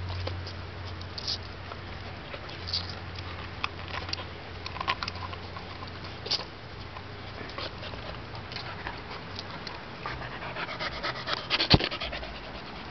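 Dogs panting and moving about at play, with scattered small clicks and rustles. A busier run of clicks comes near the end, with one sharp knock.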